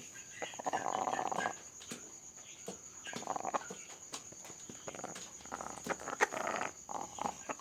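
A sick chicken breathing with a rattling snore (ngorok), a soft rasp on each breath every two to three seconds. It is the sign of a respiratory disease such as CRD.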